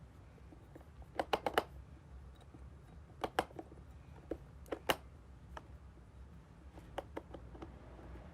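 A scattering of light, sharp clicks and taps: a quick run of about five just over a second in, a few more between three and five seconds, and some fainter ones near seven seconds.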